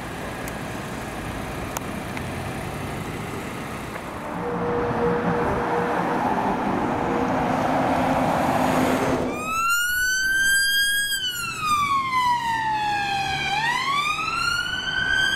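Ambulance siren on a slow wail, rising and falling in pitch, starting abruptly after road noise from passing traffic that swells before it.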